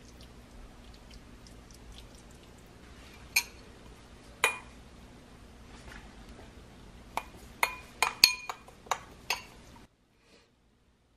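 A metal spoon clinking against a small glass bowl while stirring: two sharp clinks, then a quick run of ringing clinks about seven to nine seconds in, after which the sound cuts out.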